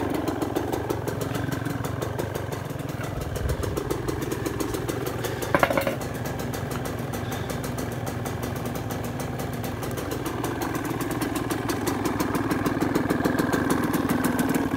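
1998 Yamaha YZ125's single-cylinder two-stroke engine idling steadily, running on a new piston and rings. A single sharp clink cuts in about five and a half seconds in, and the engine grows a little louder near the end.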